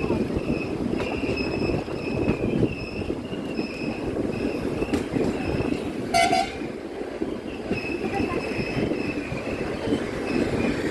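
Passenger train running, heard from on board: a steady rumble of wheels on track, with a faint high tone that comes and goes. About six seconds in, a horn gives one short toot.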